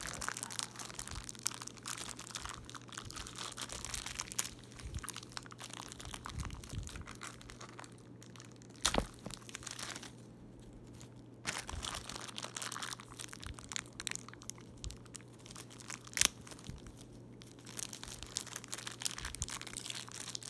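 Packaging of a lamp-base adapter being worked open by hand: irregular crinkling and tearing with scattered clicks, and two sharp snaps, about 9 and 16 seconds in.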